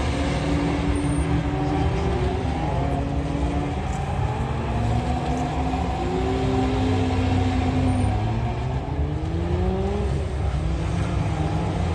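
Car engine revving hard in short bursts during a timed gymkhana run: the pitch climbs under acceleration, drops off and climbs again several times as the driver accelerates and brakes between pylons.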